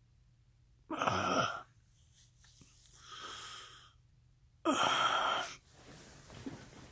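A person takes three long, heavy, wheezy breaths: loud, then faint, then loud again. The first ends in a low, falling groan.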